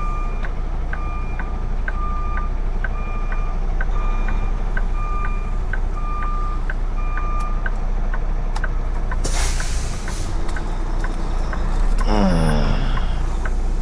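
Semi-truck backing up: its reverse alarm beeping about once every three-quarters of a second over the steady hum of the idling diesel, for the first seven seconds or so. About nine seconds in comes a short hiss of air, and near the end a brief falling sweep.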